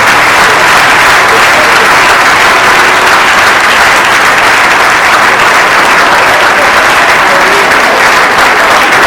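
A church congregation applauding loudly and steadily, with dense clapping and some cheering, in welcome of a guest announced from the pulpit.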